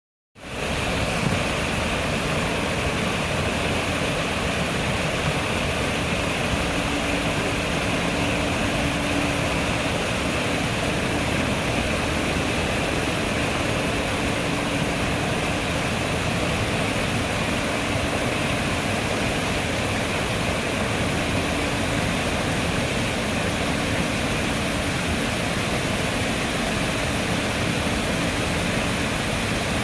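Man-made waterfall: water pouring and splashing in a steady, even rush.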